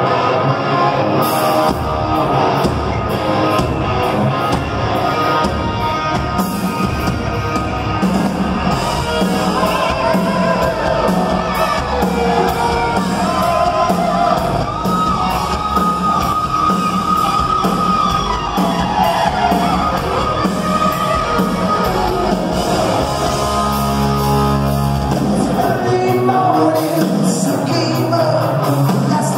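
Live rock band playing loud in a large hall, heard from the crowd: electric guitars, drums and shouted singing.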